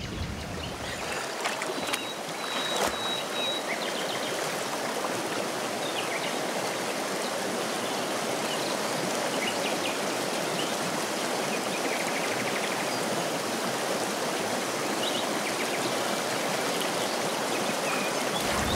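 Rushing, muddy floodwater of a river, a steady rush of moving water, with a few faint high chirps now and then.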